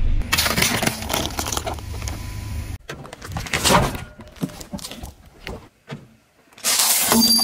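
Car tyres rolling slowly onto objects on pavement and crushing them, in a string of short cuts. There is a low vehicle rumble with crackles and cracks as things give way, and a dense burst of crunching near the end.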